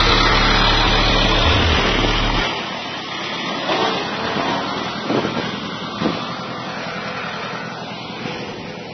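Massey Ferguson 4240 tractor's diesel engine running while it pulls a disc plough through the ground, loud for the first two and a half seconds, then dropping away abruptly and leaving a steady rushing noise with a few faint knocks.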